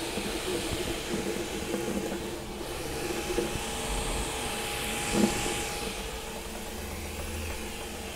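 Flsun Super Racer delta 3D printer printing at high speed, heard close up: its stepper motors hum in steady tones over the hiss of its cooling fans. There is a brief bump about five seconds in.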